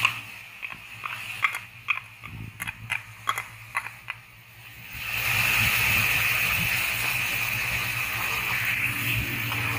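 Chicken pieces frying in hot oil in a karahi: scattered pops and clicks in the first half, then a steady sizzle from about halfway through as the garlic-ginger paste goes into the oil.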